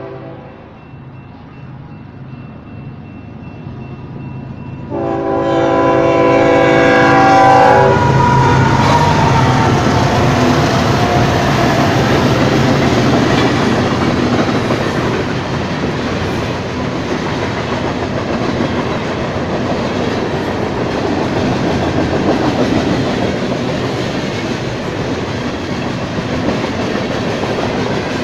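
Union Pacific freight train at a grade crossing: the locomotive horn sounds a loud chord about five seconds in for about three seconds. Then the diesel locomotives pass, and a long string of freight cars rolls by with steady wheel clatter.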